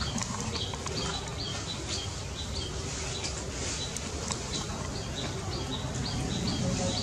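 A small bird chirping over and over, a quick series of short chirps at two or three a second, over a low steady rumble.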